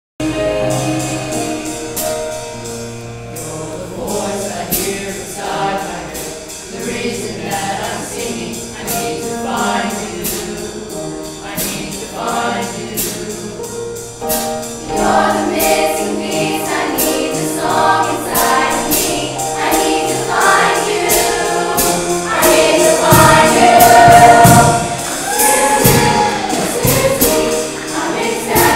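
Junior high show choir singing together over accompanying music with a steady beat, starting at once from silence; the singing swells louder in the second half.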